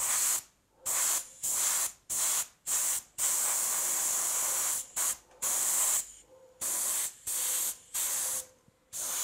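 Airbrush spraying primer onto a small model part at about 2 bar, in short bursts of hiss about half a second each, with one longer spray of nearly two seconds around the middle.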